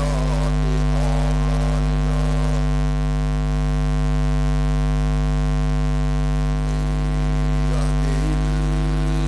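Loud, steady electrical mains hum from a microphone and sound-system chain, a buzz with many evenly spaced overtones. A man's voice comes through faintly in the first couple of seconds and again near the end.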